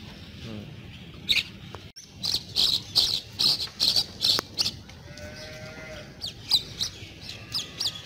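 Animal calls in a cattle yard: a run of sharp, high chirping calls, about three a second, from about two seconds in and again near the end, and one short pitched call about five seconds in.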